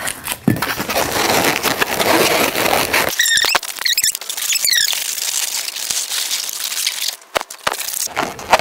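Latex modelling balloon being stretched and twisted by hand, rubbing and creaking, with three short high squeaks about three to five seconds in.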